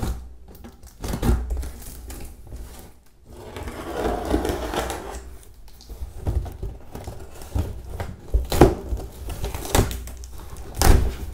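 A cardboard shipping box being cut open by hand: a pointed tool scraping and slicing along the packing tape, with a longer scraping, rustling stretch about four seconds in and several sharp knocks on the cardboard.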